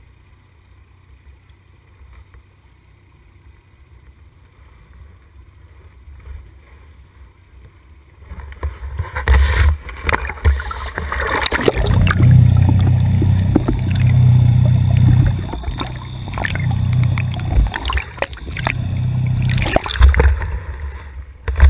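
Quiet at first, then from about a third of the way in loud splashing and rushing water as a hooked fish thrashes at the surface and a landing net is swept through the water, with knocks and rumbling handling noise from the camera mounted on the net.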